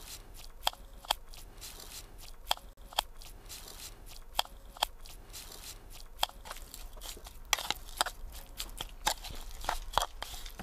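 Metal spoon stirring a wet, sugary crushed-pineapple mixture in a wooden bowl. There are paired sharp clicks and crunchy scrapes, repeating evenly about every two seconds, and they give way to denser crunching about seven and a half seconds in.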